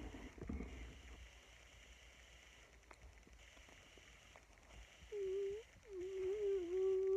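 A girl humming with closed lips: a short note about five seconds in, then a longer, slightly wavering note held for nearly two seconds.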